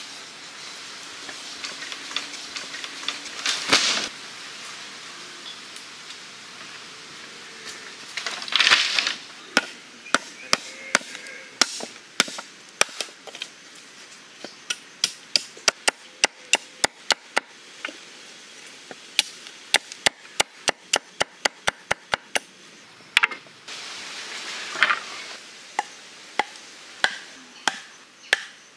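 Machete chopping wooden sticks on a wooden block: a long run of sharp, separate wooden chops, one or two a second. Near the end, a wooden club knocks a stake into the ground. A few longer, noisier sounds come in between.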